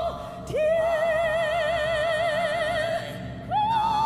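High male voice singing long held notes with wide vibrato on the lyric 'tiankong' ('the sky'), with a brief break between notes, then stepping up to a higher, straight held note near the end, over a soft orchestral accompaniment.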